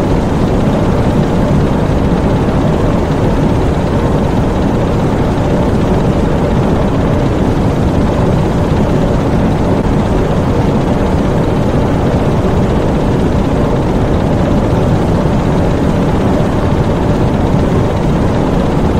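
Diesel engines of a U-boat engine room running in a steady, dense drone, mostly deep rumble with a fainter hiss above it.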